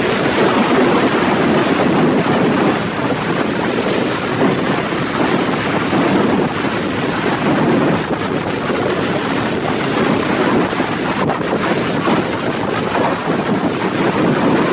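Strong wind buffeting the microphone in a continuous loud rumble, over the rush of a rough sea.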